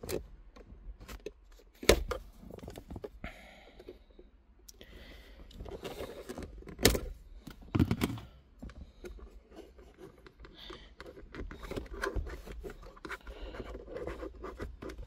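Plastic trim removal tool scraping and prying at a car console's USB hub bezel, with a few sharp plastic clicks as it catches and slips; the hub does not come loose.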